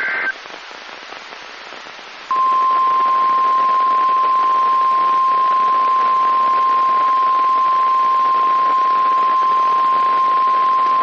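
NOAA Weather Radio broadcast over a hiss of radio static, opening with the last fraction of a second of the high digital header tones. About two seconds in, the 1050 Hz Warning Alarm Tone comes on: one steady, piercing tone held for about nine seconds, the alert that a warning message follows.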